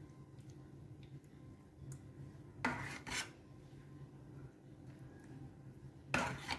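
Metal spoon spreading white sauce over a lasagna layer, rubbing and scraping against the baking dish, with two louder scrapes about three seconds in and near the end. A faint low steady hum runs underneath.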